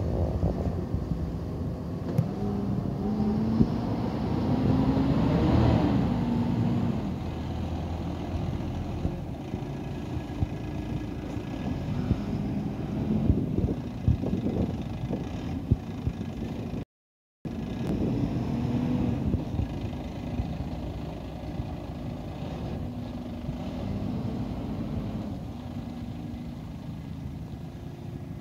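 Garbage truck engine running, revving up and easing off within the first few seconds, then a steadier drone as the truck moves along the street. The sound drops out completely for about half a second around two-thirds of the way through.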